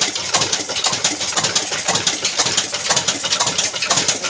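Old black stationary diesel engine of the Ruston Hornsby type running steadily at slow speed, with even beats of about three a second.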